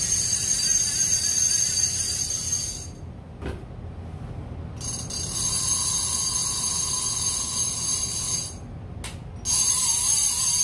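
Clicker (spool ratchet) of a big-game lever-drag fishing reel buzzing as the spool is spun fast, in three runs with short pauses between them. This is a check of whether the clicker is loud enough.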